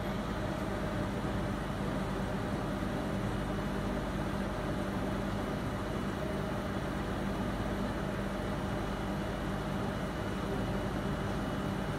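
Steady machine hum with a low drone and an even hiss, unchanging throughout.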